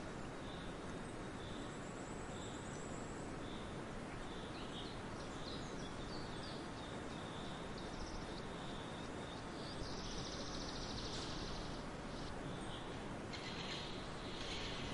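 Wind blowing steadily across a barley field, with swallows twittering in short high chirps. A buzzing cricket trill comes in about ten seconds in and again near the end.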